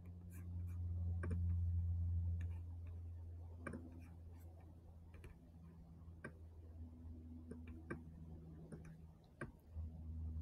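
Computer mouse clicking now and then at uneven intervals, faint, over a low steady hum.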